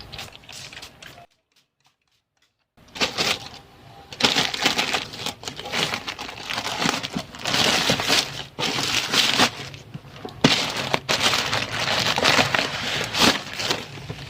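Headphone packaging being handled and opened: irregular crinkling and rustling, after a moment of total silence about a second in.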